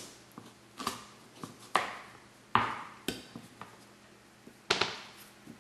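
A heavy metal kitchen knife being jabbed into the hard rind of a whole raw pumpkin, giving about five sharp knocks at irregular intervals.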